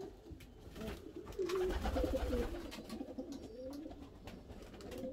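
Domestic pigeons cooing, several low wavering coos overlapping one another.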